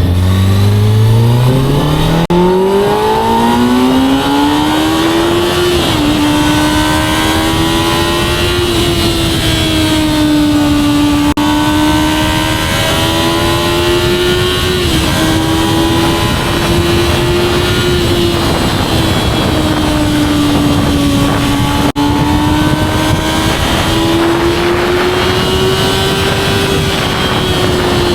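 2024 Kawasaki ZX-6R's 636 cc inline-four on its stock exhaust, revs climbing steeply over the first few seconds and then held high, rising and falling slowly. The pitch drops briefly twice, about six and fifteen seconds in.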